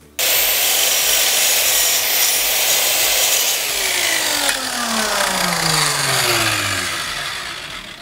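Silverline compound mitre saw cutting through oak, with a high whine over the noise of the cut; about halfway through, the blade is let go and the motor winds down with a steadily falling whine that fades out.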